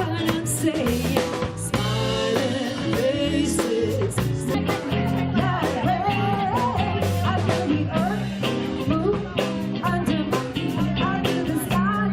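A live rock band plays a 1970s cover song: electric guitar over bass and drum kit, with a steady beat.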